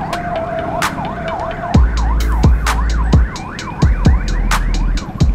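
A siren yelping, its pitch sweeping rapidly up and down several times a second, with a steady tone under it that stops about two seconds in. From then on, wind rumbles on the microphone of the moving scooter.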